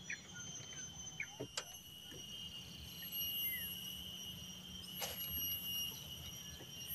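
Steady, high-pitched drone of insects with a few short bird chirps over it, and two sharp knocks, one about a second and a half in and one about five seconds in.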